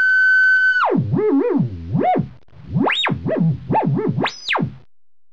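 LushOne synthesizer's filter self-oscillating: a steady high electronic tone for about a second, then swooping down and up in a run of quick sweeps, two rising very high, as the cutoff knob is turned and the resonant pitch tracks the cutoff.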